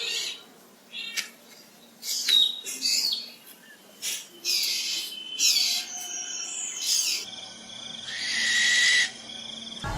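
Bird calls: a string of short, sharp high-pitched chirps and whistles, then one longer buzzy call near the end.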